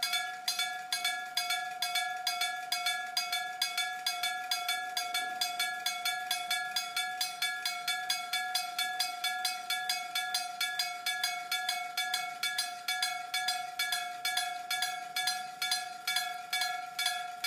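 Japanese railway level-crossing warning bell ringing in an even rhythm of about two and a half strikes a second, the signal that a train is approaching the crossing.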